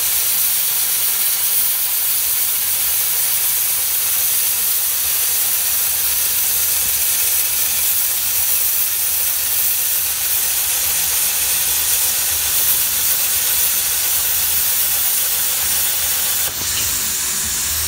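Plasma cutter torch hissing steadily as its arc cuts through diamond-plate steel.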